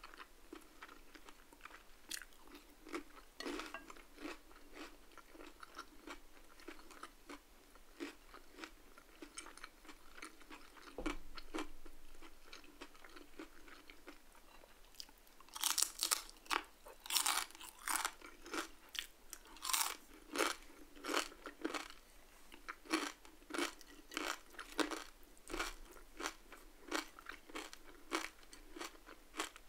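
Close-up eating sounds: soft chewing at first, then, from about halfway, loud crisp crunching of crispy fried salmon skin, roughly two bites a second. A brief low thump comes a little before the crunching starts.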